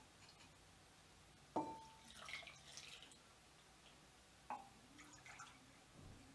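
Two light clinks of earthenware, about three seconds apart, the first ringing briefly, each followed by a short faint splash of milk poured from a clay jug into a small clay bowl.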